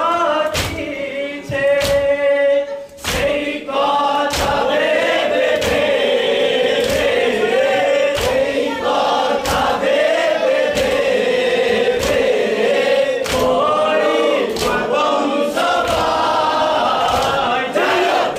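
A group of men singing a Bengali noha (a Muharram lament) together, with loud, even strikes of hands on chests in matam keeping time about once every second and a bit.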